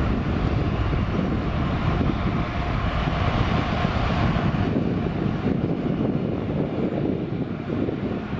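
Boeing 777-300ER's twin GE90-115B turbofans at takeoff thrust during the takeoff roll, a loud, steady rumble heard from behind as the jet accelerates away. The higher part of the sound dulls a little about halfway through.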